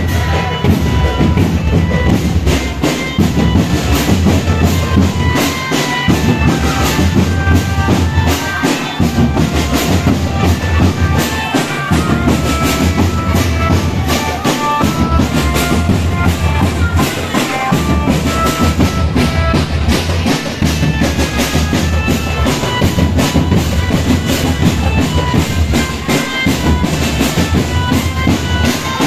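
Marching drum band playing: bass drums and snare drums beating a fast, steady rhythm with a melody over the drums.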